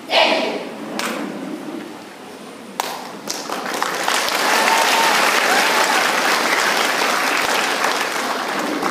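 Audience applause, building about three seconds in and holding steady, after a brief burst of many voices together right at the start that is the loudest moment.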